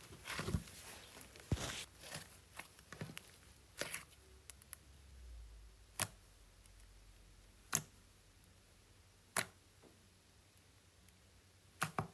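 Crunchy slime squeezed in the hands with a run of small crackles, then poked with a fingertip, each poke giving one sharp pop, about four pokes spaced a second and a half to two seconds apart.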